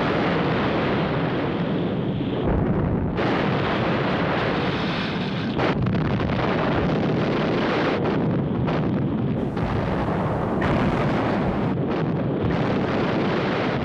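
Naval gunfire and shell explosions merging into a continuous loud rumble of heavy barrage.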